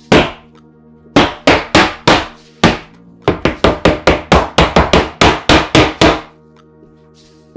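Rubber mallet striking a wooden cabinet carcass to seat its glued back panel into the rabbet. A few spaced blows come in the first three seconds, then a quick run of about fifteen blows at some four or five a second stops about six seconds in.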